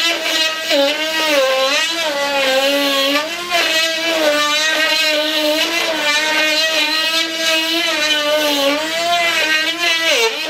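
Dremel rotary tool running with a drill bit as it bores a Robart hinge out of a wooden aileron. Its whine wavers up and down as the bit loads and frees, with a sharp dip in pitch near the end.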